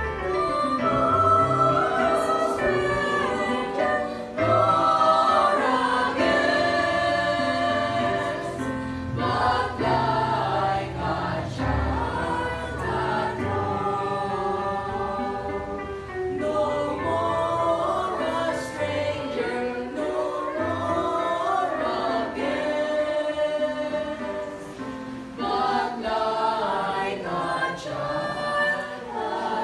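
Mixed church choir of men's and women's voices singing a hymn together in several parts.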